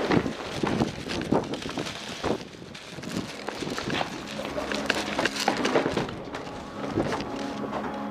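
Irregular knocks, clicks and scuffs of footsteps and rattling gear from a player moving quickly, with faint steady tones coming in during the second half.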